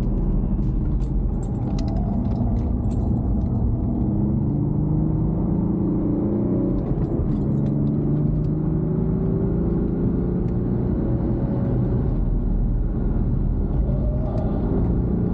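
Car engine heard from inside the cabin, accelerating through the gears: its pitch climbs and then drops at an upshift about halfway through, then climbs again, over a steady rumble of road and tyre noise.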